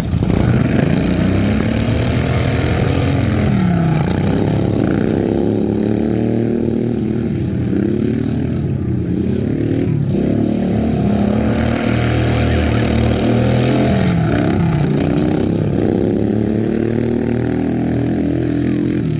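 Racing lawn mower engines running hard, their pitch rising and falling over and over as they speed up and slow, with more than one engine heard at once.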